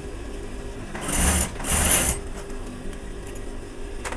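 Industrial single-needle lockstitch sewing machine edge-stitching cotton fabric in two short runs about a second in, each under a second long, over the steady hum of its motor. A sharp click comes near the end.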